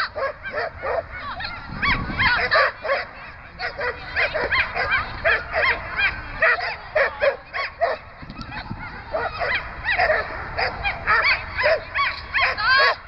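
A dog barking and yipping over and over, several short high barks a second with hardly a pause.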